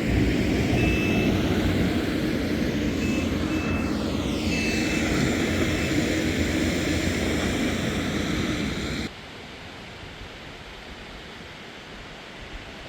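Heavy vehicle engines running steadily, with several short high beeps in the first five seconds. About nine seconds in the sound cuts abruptly to a much quieter outdoor background.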